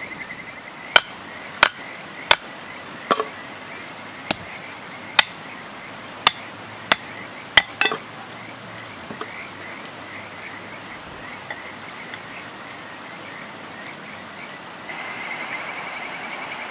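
About ten sharp chops of a heavy blade striking firewood on a chopping stump, roughly one every two-thirds of a second, stopping about eight seconds in. Underneath, a steady chorus of frogs chirping, which gets louder near the end.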